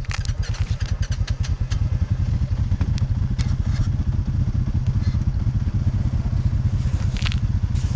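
ATV engine running steadily with a fast, pulsing rumble, with scattered clattering clicks over it.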